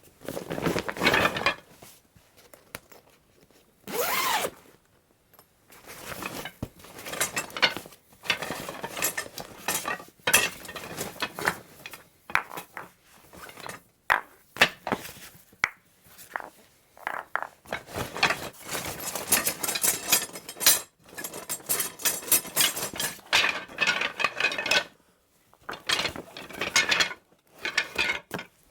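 A croquet bag being rummaged through: croquet equipment knocking and clinking together, with rustling, in irregular bursts and short pauses.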